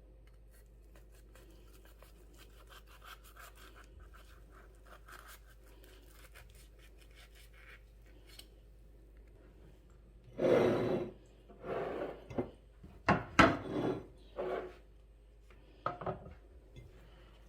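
Faint scratching and rubbing, then five or six loud, irregular rustling scrapes in the last seven seconds.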